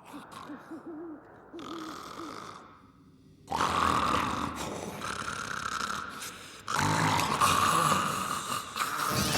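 Exaggerated cartoon snoring sound effects: a quieter wavering snore at first, then two long, loud, rasping snores of about three seconds each, the first beginning a little past the middle.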